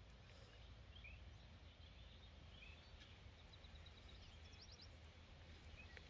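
Near silence: faint outdoor ambience with a low rumble and a few faint, short bird chirps.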